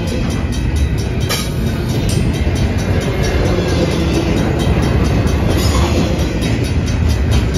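Double-stack container well cars of a Union Pacific intermodal train rolling past at close range: a steady low rumble of wheels on rail with scattered clicks and clanks, and one sharper knock a little over a second in.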